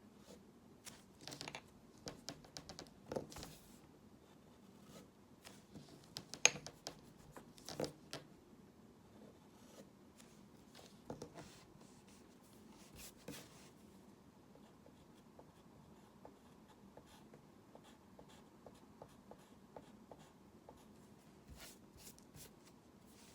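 Drawing by hand: a drawing tool making short, irregular scratchy strokes and light taps, busiest in the first half, then fainter, sparser ticks.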